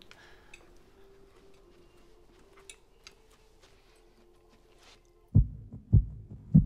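A faint steady hum, then about five seconds in three deep, evenly spaced thuds roughly half a second apart, like a pounding heartbeat.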